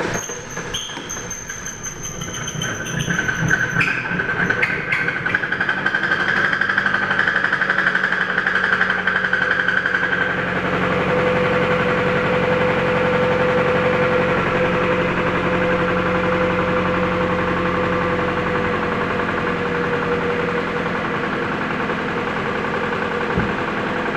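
2014 Jeep Patriot's four-cylinder engine running with a rod knock, the bottom end damaged by oil loss after the oil filter was left loose. It runs rougher for the first ten seconds or so, then settles to steadier running with a whine that drops in pitch.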